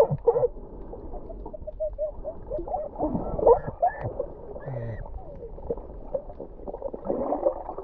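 Boys laughing and calling, muffled and dull as heard underwater, in short wavering bursts over a low watery rush.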